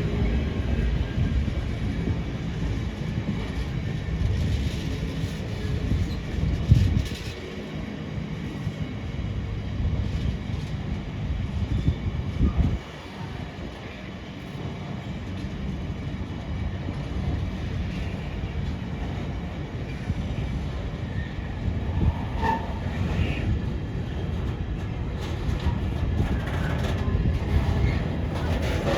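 Container freight train rolling past: a steady low rumble of wagon wheels on the rails. The rumble drops suddenly about thirteen seconds in, then builds again, with a few sharp clicks from the wheels later on.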